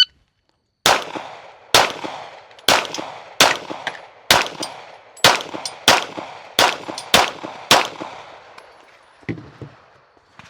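Ten pistol shots from a Glock, fired at a steady pace of about one a second, each with a short echoing tail. A lighter knock comes about nine seconds in.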